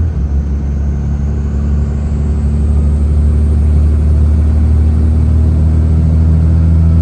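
5.9 Cummins turbo diesel with an aftermarket S&B intake, heard from inside the truck's cab while cruising: a steady low engine drone with intake noise, building slightly in level. A faint high whine climbs over the first few seconds, then holds steady.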